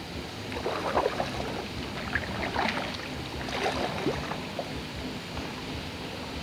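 Kayak paddle strokes in calm river water: the blade dipping and pulling with splashes and drips, three strokes about a second and a half apart, then quieter as the boat glides.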